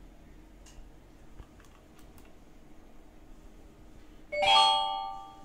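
Queue management system's call chime: a single chime with several ringing tones, about four seconds in, fading away over about a second. It signals the next token being called to the counter. Before it, a few faint clicks.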